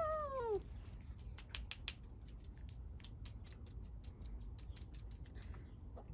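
A short falling vocal 'ooh' from a child right at the start, then many quick, irregular small clicks and crackles as a slime-filled toy egg and its contents are handled.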